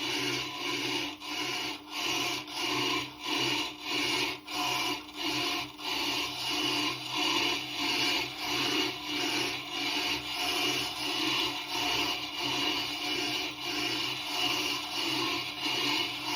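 Tormek TT-50 diamond truing tool cutting across a turning Tormek grinding stone: a steady gritty scraping over the machine's low motor hum. It swells and fades about one and a half times a second, once with each turn of the wheel.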